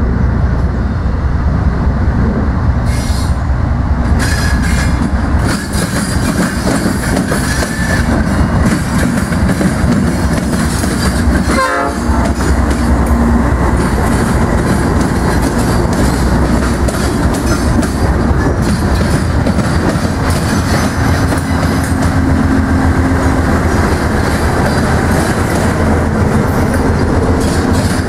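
Norfolk Southern GE diesel locomotives (C40-9W and C40-8 types, V16 engines) rumbling slowly past close by, pulling a double-stack container train. The stack cars follow with a steady clickety-clack of wheels over the rail joints and crossing diamonds.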